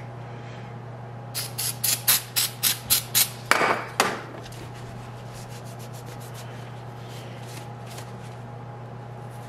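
Small metal oil-pump gears clicking against each other and the pump body as they are handled: a quick run of about a dozen light clicks, then a short scrape as a rag wipes them, then a few fainter clicks. A steady low hum runs underneath.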